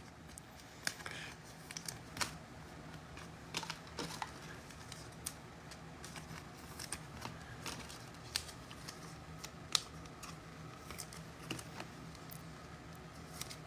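Faint, irregular clicks and taps, a few each second, over a low background hum.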